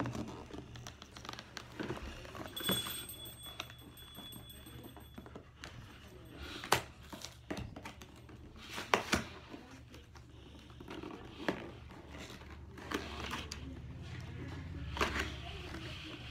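Packaging of a toy track set being opened and handled: crinkling and tearing, with sharp clicks and snaps of plastic pieces, loudest about seven and nine seconds in.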